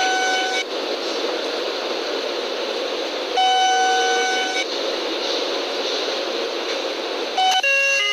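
Seibu 2000 series train door chime: a held electronic tone of about a second, sounding just after the start and again about three and a half seconds in, the second time ending on a lower note. Near the end a different chime of several quick notes starts. Steady background hiss underneath.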